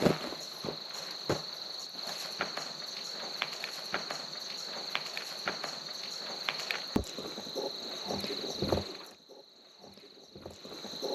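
Crickets chirring in one steady high-pitched band, with scattered sharp clicks and cracks over it. About nine seconds in the sound drops away for a second or so, then the crickets resume.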